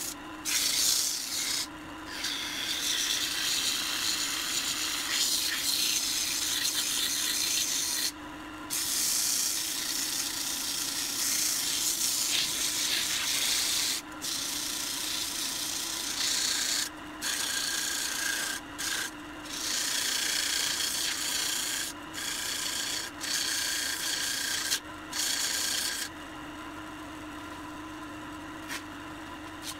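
Sandpaper held by hand against a pine vase spinning on a wood lathe, a rasping hiss that breaks off and resumes as the paper is lifted and pressed back, over the steady hum of the lathe. The sanding stops a few seconds before the end, leaving the lathe running.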